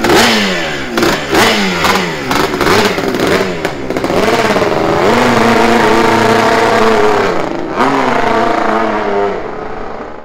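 Bultaco TSS 350 two-stroke single-cylinder racing engine being revved: a run of quick throttle blips rising and falling in pitch, then held at high revs for several seconds with one brief dip, fading just before the sound cuts off.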